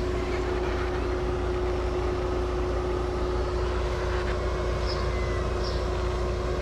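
Steady mechanical hum: a low drone with one constant tone over it, like a motor or engine running without change.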